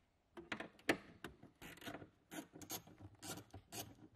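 Ratchet with an 8mm socket undoing the nuts on the back of a tail light: short rasping bursts of pawl clicks on each back-stroke, repeating several times a second and starting about half a second in.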